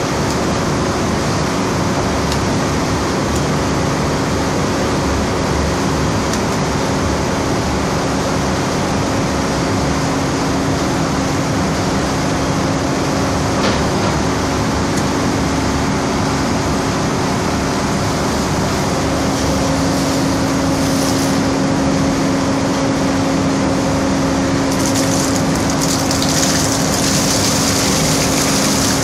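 Fish-processing plant machinery running loudly and steadily, with a constant hum. Near the end a hiss of spraying liquid joins in.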